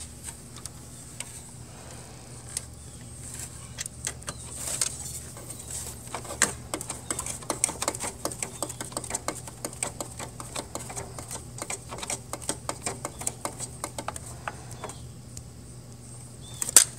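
Long-shaft screwdriver turning a screw into the swing plate of an HP LaserJet 4250 printer: a run of rapid, irregular clicks and ticks as the screw is driven home, with a steady low hum underneath.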